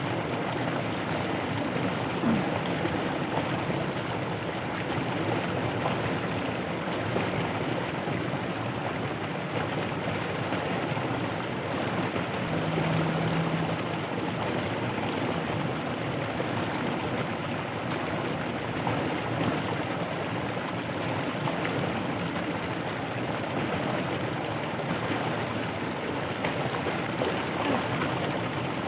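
Floodwater rushing steadily through a rice-field channel, with a brief low hum about halfway through.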